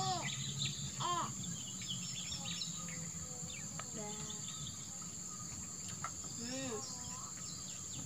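Steady high-pitched drone of insects chirring. Short voice sounds come through about a second in and again near the end.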